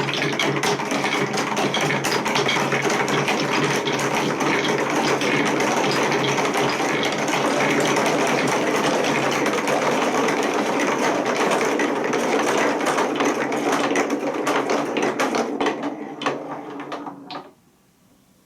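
Many marbles rolling and clattering down plastic TrixTrack wave-slope track: a dense, continuous rattle of clicks. It thins to a few separate clicks near the end and stops about seventeen seconds in.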